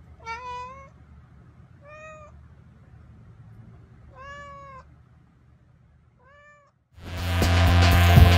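Domestic cat meowing four times, short meows one to two seconds apart, the last one fainter. About seven seconds in, loud music with a deep hum comes in.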